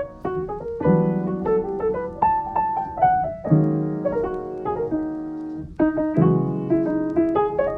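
Background piano music: a melody over held chords, played in short phrases.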